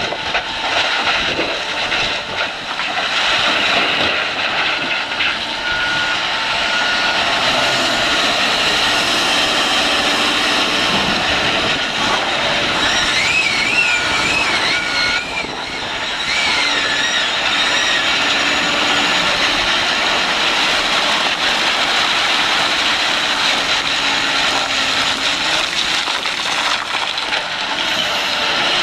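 Large Caterpillar excavator's diesel engine running steadily, with a brief wavering high-pitched whine about halfway through.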